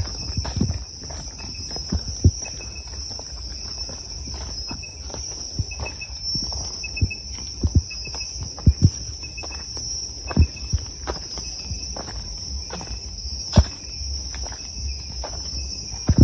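Insects chirring steadily in a high, even drone, with a faster pulsing chirp underneath. Scattered short thuds and knocks come through now and then.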